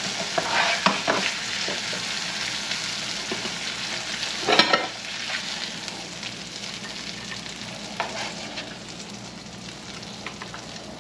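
Catfish fillets sizzling in butter in a frying pan, with a plastic spatula scraping and tapping in the pan as the cooked fillets are broken apart and lifted out. The loudest scrape comes about four and a half seconds in, and the sizzle eases a little toward the end.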